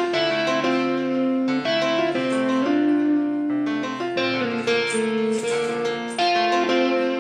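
Instrumental background music: a melody of held keyboard notes that change every half second or so.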